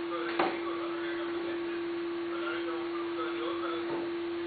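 A steady, even hum on one pitch, with a single short click about half a second in and faint voices in the background.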